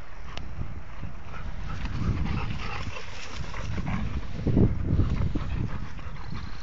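Dogs playing on grass, with scuffling, dog noises and irregular low thumps, loudest about four and a half seconds in.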